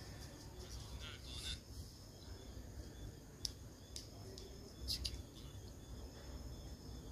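Faint room tone: a low rumble and a steady high-pitched whine, with a few short clicks, the loudest about five seconds in.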